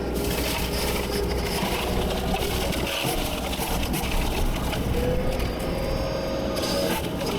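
Engine of a heavy land-clearing machine running steadily while brush and wood crack and crush under it.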